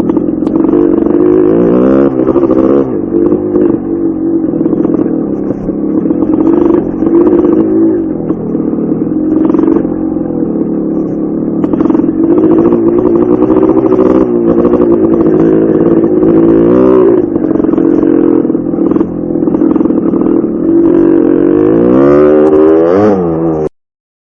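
Dirt bike engine running loudly and being revved, its pitch rising and falling several times, then cutting off suddenly near the end.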